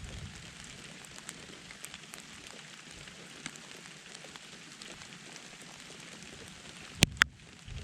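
Steady rain falling, with many small drops ticking close by. Two sharp clicks about seven seconds in are the loudest sounds.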